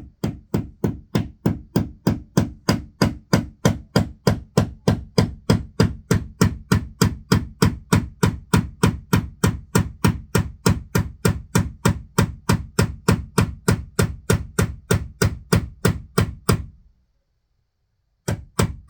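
Hammer driving a nail into a wall with a steady run of rapid blows, about three or four a second, each with a dull thud. The blows pause briefly near the end, then a few more follow.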